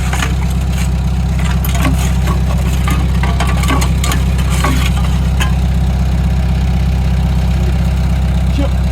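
Heavy-equipment diesel engine running steadily, loud and close, with scattered short knocks over it.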